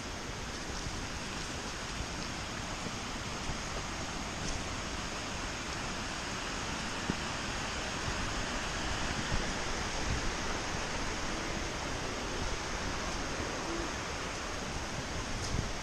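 Steady rushing of falling water, an even roar with no break.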